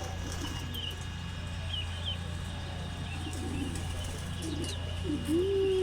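Pigeons cooing softly, with a few short high chirps from other birds in the first two seconds.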